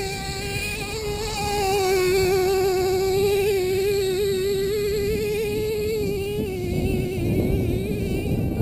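Small engine of a radio-controlled monster truck running at high revs as a high, buzzing whine, wavering as the throttle is worked. Near the end the engine note fades and a rougher rushing noise takes over.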